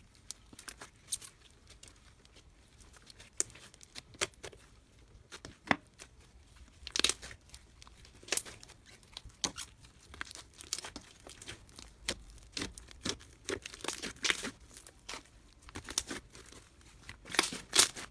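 Slime being squeezed and pulled by hand, giving irregular sticky crackles and pops, some in quick clusters.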